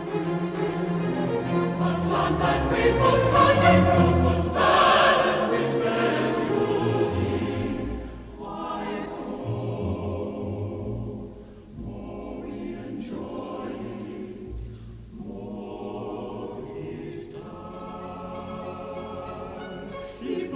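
Mixed choir singing with a string orchestra in a slow classical choral piece, fuller and louder for about the first eight seconds, then softer, with short breaths between phrases.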